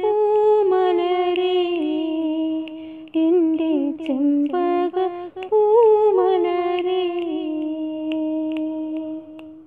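A woman singing a Malayalam song unaccompanied, with sliding, ornamented notes, ending on a long held note for the last couple of seconds that fades and stops near the end.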